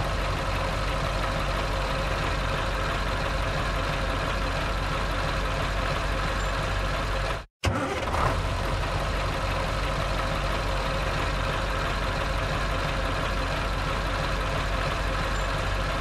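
Truck engine idling steadily at an even pitch. The sound cuts out completely for a split second about halfway through, then picks up again.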